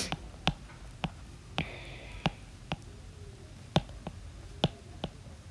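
Stylus tip tapping on a tablet's glass screen while handwriting, about nine sharp, irregular taps.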